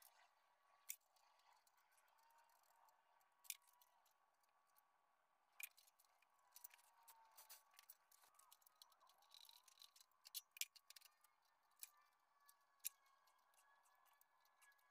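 Faint, scattered metallic clicks and taps of a hand wrench and loosened parts on a VW air-cooled engine, coming more thickly in the second half.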